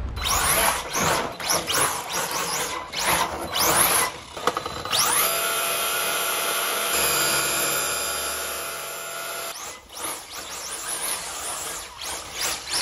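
Brushless electric motor of a 1/10-scale electric 4WD RC drift truck whining under hard throttle. It comes in many short rising bursts, then one long rising whine about five seconds in that holds steady for several seconds and fades, then more short bursts near the end.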